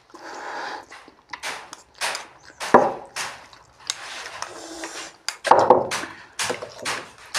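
Two people slurping and chewing Maggi instant noodles: a run of noisy slurps of differing length, with quicker short smacking sounds toward the end.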